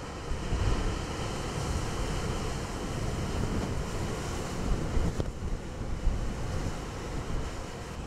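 Large typhoon-driven storm waves breaking against a rocky sea cliff: a dense, continuous wash of surf and spray, with gusting wind rumbling on the microphone.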